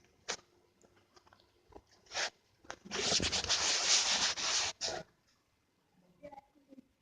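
Two short knocks, then about three seconds in a loud rubbing, scraping noise that lasts about two seconds and stops.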